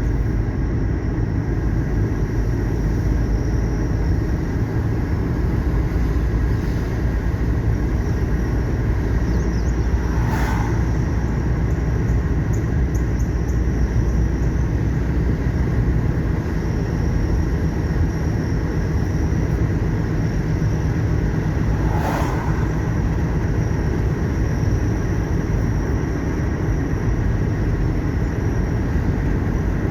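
A car driving along a road: a steady low rumble of tyre and engine noise. There is a short, sharp sound about ten seconds in and another about twelve seconds later.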